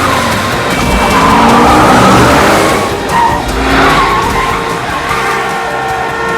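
Car tyres squealing and skidding as a car speeds off hard, over rock music with held guitar notes.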